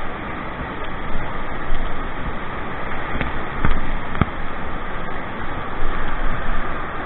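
Steady rush of white water pouring over a weir and churning around a kayak, with a few sharp knocks about halfway through.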